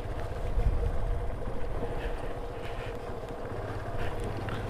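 Motorcycle running at a steady pace, with a low rumble and wind rushing over the microphone and a faint steady hum underneath.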